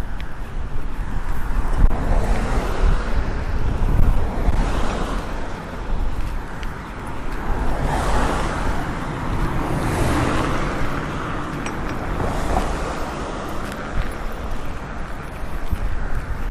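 Ocean surf washing onto the beach, rising and falling every few seconds, with wind rumbling on the microphone.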